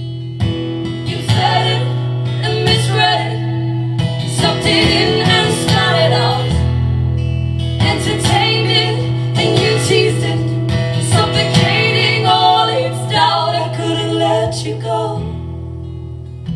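Live acoustic guitar strumming under a woman's singing voice; the singing stops near the end and the guitar carries on alone.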